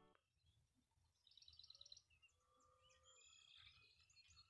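Near silence with faint birdsong: a short rapid trill about a second and a half in, then scattered high chirps later.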